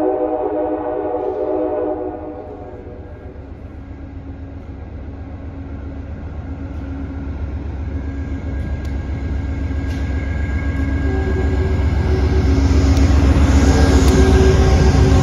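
Amtrak diesel passenger train approaching and passing: its horn chord ends about two seconds in, then the locomotive's engine rumble and the wheel noise build steadily, loudest as it goes by near the end.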